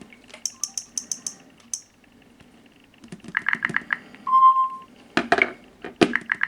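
Clicks and taps from handling mobile phones: a run of quick light clicks, then another cluster of clicks, one short beep about four seconds in, and a few louder knocks near the end.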